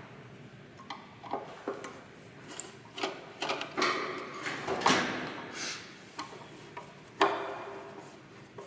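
Tools and metal parts knocking and clinking during a teardown, as irregular clicks and clanks, some with a short metallic ring. The loudest come about five and seven seconds in.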